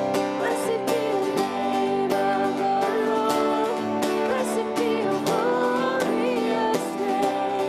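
Live worship song played in a church: strummed acoustic guitar over sustained band chords, with singing voices carrying the melody.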